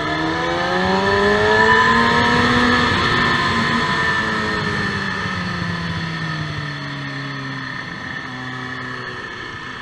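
Sport motorcycle engine heard from on board at speed, with wind rushing past: it revs up hard for the first couple of seconds, then its pitch falls steadily as the rider backs off and slows for a bend.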